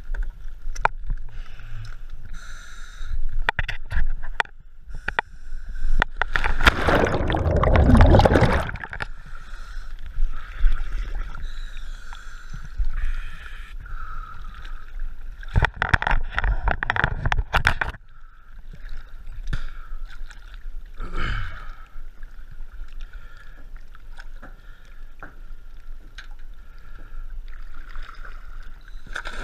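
Water sloshing and gurgling around a camera at the water surface, with scattered small knocks and two louder bursts of splashing and bubbling, about seven and about sixteen seconds in.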